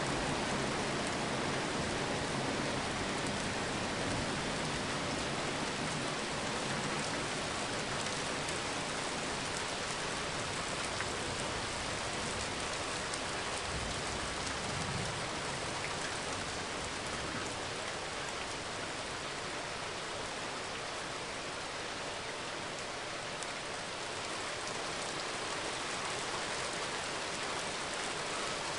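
Steady rain falling, an even hiss of drops with no breaks.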